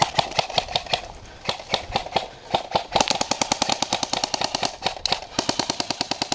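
Airsoft guns firing rapid full-auto strings, a fast run of sharp cracking shots at roughly a dozen or more a second, with short breaks about a second in and near three seconds.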